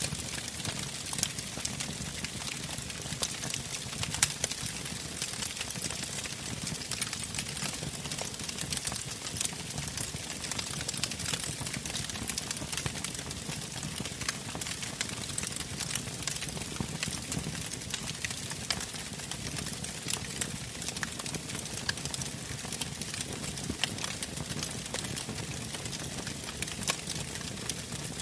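A steady noise bed with a dense scatter of faint crackles and clicks over a low rumble.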